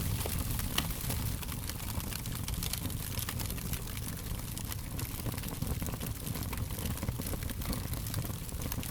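Fire crackling: frequent small sharp pops and snaps over a steady low rumble.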